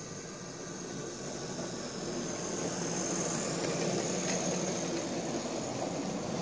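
Hornby OO gauge BR Class 5MT model steam locomotive hauling a goods train: its electric motor whirring and its wheels running on the track, growing a little louder over the first couple of seconds as the train comes past.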